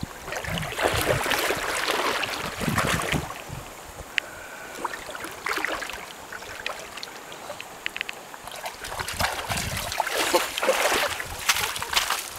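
Dog paddling through a shallow river, water splashing and sloshing around it, then its paws crunching and clattering over loose river pebbles as it walks out onto the gravel bank near the end.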